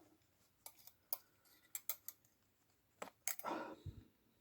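Small sharp clicks as a zipper slider is worked along the zipper teeth by hand and with pliers, then a short scraping rasp about three seconds in.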